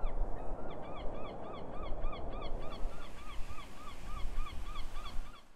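Geese honking in a rapid, even series of short calls, about three a second, over a low rumbling noise; the sound cuts off suddenly near the end.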